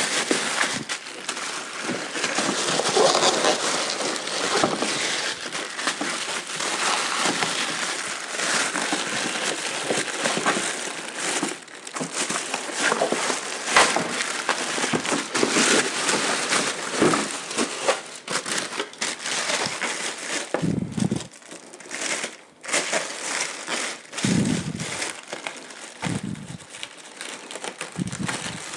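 Large thin plastic packaging bag crinkling and rustling as it is pulled and worked loose by hand, with many sharp crackles.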